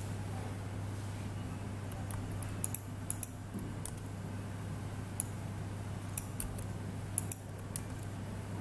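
About a dozen sharp clicks of a computer mouse and keyboard, scattered and some in quick pairs, starting a couple of seconds in, over a steady low hum.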